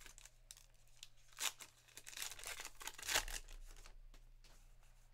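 The plastic wrapper of a Topps Archives baseball card pack being torn open and crinkled by hand: irregular rips and crackles, with one burst about a second and a half in and a denser run from about two seconds in, loudest near three seconds in.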